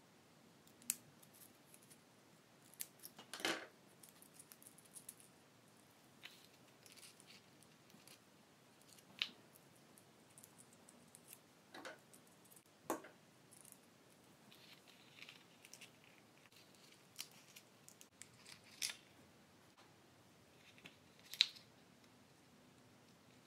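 Scissors snipping black paper, with scattered sharp clicks and light rustles as the paper pieces and craft materials are handled on a wooden table.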